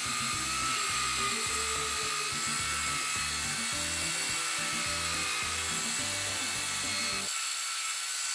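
Mini rotary polisher whining steadily at high speed as its small foam pad polishes gloss-black interior trim. Background music with a beat runs underneath and stops about seven seconds in.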